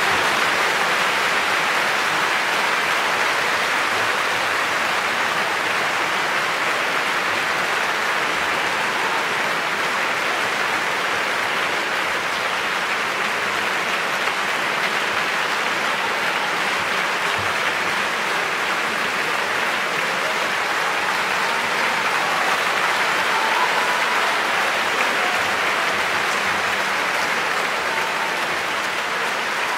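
Large concert-hall audience applauding steadily, a dense even clapping.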